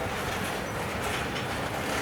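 Freight train cars rolling past at close range, a steady rumble of steel wheels on rail.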